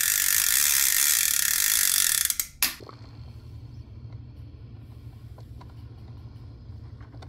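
A rapid ratcheting click that speeds up into a loud continuous rattle and cuts off about two and a half seconds in. A low steady hum with faint ticks follows, from a drip coffee maker.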